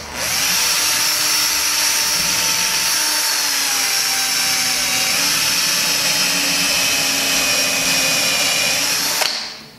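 Power drill running under load, boring a pilot hole through a paper fitting template into the door for a door closer's body. Its whine dips slightly in pitch near the middle, then picks up again, and it stops about nine seconds in.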